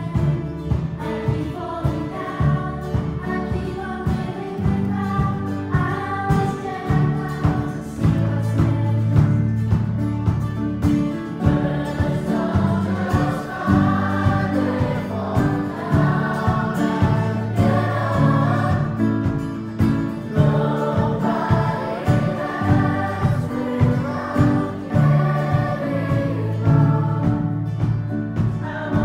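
A large school choir of children and teenagers singing together, accompanied by keyboard and guitar.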